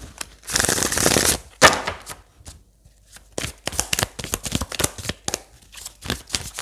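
Tarot cards being shuffled by hand: a rushing shuffle about half a second in, a sharp snap, then a quick run of card clicks and taps through the second half.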